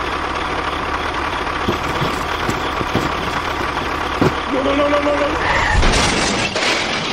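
Steady engine-like running of a miniature DIY tractor or bulldozer, with a few sharp clicks and a short wavering tone about five seconds in, then a louder burst near the end.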